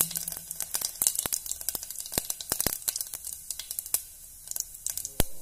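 Cumin seeds sizzling in hot mustard oil as they brown, with irregular sharp crackles and pops over a faint hiss.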